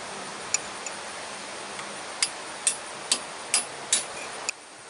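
Hammer tapping a chisel into a truck hub's grease seal to cut it out: a couple of light taps, then five sharp strikes about two a second, starting about two seconds in.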